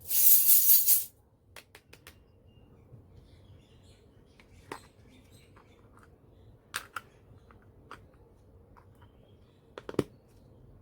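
Handling of small plastic toy kitchen pieces: a loud rustle for about a second at the start, then scattered light clicks and taps, with a sharper pair of knocks near the end.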